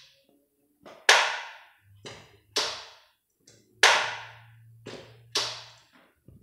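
Chain brake of a Stihl chainsaw, engine off, snapped on by hand at the front hand guard. Four sharp snaps come about a second and a half apart, most with a softer click just before.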